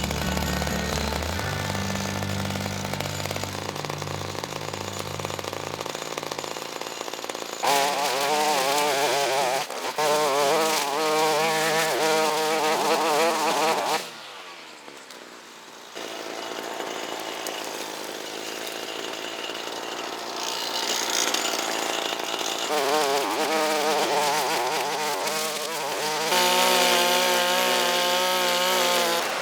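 Small two-stroke brush cutter engine running at high speed, its pitch wavering up and down as it cuts, in several stretches with a brief drop to quiet about halfway. The first few seconds hold a lower, steady engine hum instead.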